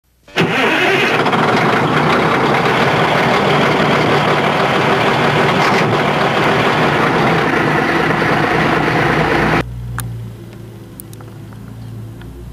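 Mustang 2054 skid steer loader running loud and steady under work. About nine and a half seconds in the noise drops suddenly to a much quieter, even engine hum with a few sharp clicks.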